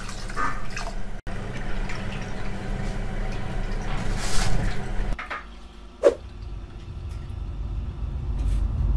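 Water sloshing and being poured off basmati rice in a glass bowl as the rice is rinsed by hand.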